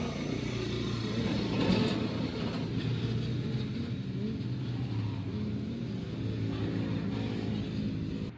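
An engine running steadily, its pitch wavering slightly, cut off abruptly at the end.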